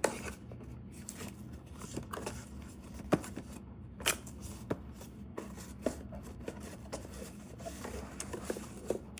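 A small cardboard box and its packaging being opened and handled: scattered sharp clicks, taps and short rustles, over a faint steady low hum.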